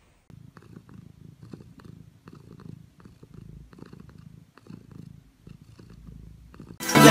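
Domestic cat purring close up, the purr swelling and fading with each breath. Loud music starts suddenly near the end.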